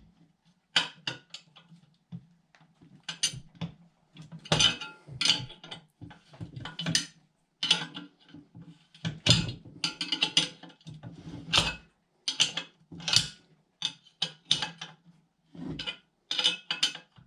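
Irregular metallic clinks, clatter and scraping of a wrench and steel bolts and washers being worked into an aluminum trimmer-rack engine-mount bracket as the bolts are tightened.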